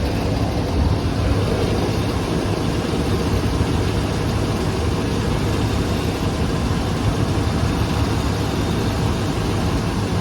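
A warmed-up 7.4 L Vortec big-block V8 engine running steadily, with a knock that the owner can't yet place as piston slap or bearing knock.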